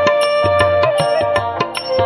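Music: a held, wavering melody line over a quick, steady beat of drum strokes.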